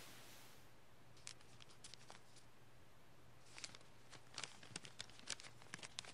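Folded paper being handled and unfolded, faintly crinkling and crackling in two spells: briefly about a second in, then again from about three and a half seconds on. A low steady hum runs underneath.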